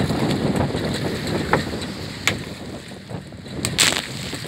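Wind buffeting the microphone over choppy sea, with a couple of sharp knocks. Near the end comes a short loud splash as a hooked fish thrashes at the surface beside the boat.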